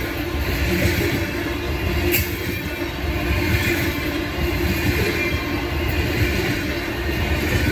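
Coal gondolas of a freight train rolling past close by: a steady rumble and rattle of steel wheels on the rails, with a steady low hum over it and a sharp click about two seconds in.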